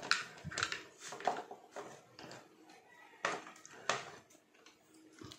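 Scattered small clicks and knocks of tools being handled on a workbench, with the sharpest two about three and four seconds in, as a multimeter is readied for a continuity test.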